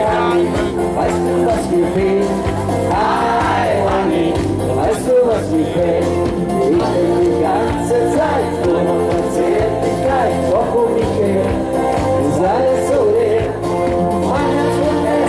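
Male singer singing a Schlager song live into a microphone, over instrumental backing with a steady bass beat.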